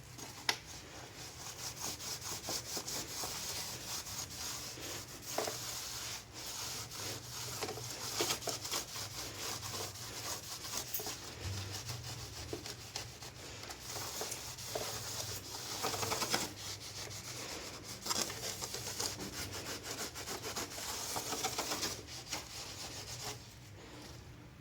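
Rapid scrubbing strokes on air-conditioner parts during cleaning, pausing briefly a few times.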